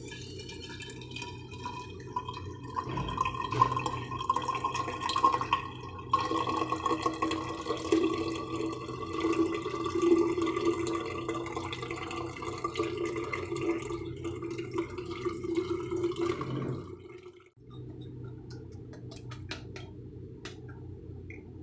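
Watermelon juice poured in a steady stream through a strainer into a tall jar, splashing as the jar fills. The pour stops about three-quarters of the way through, leaving a few drips.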